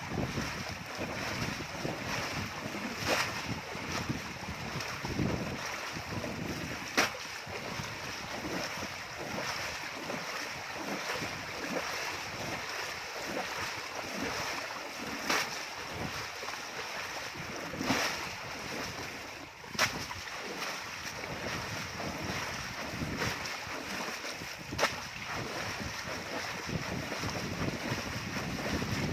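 Wind buffeting the microphone over a steady outdoor hiss, with a few sharp clicks scattered through.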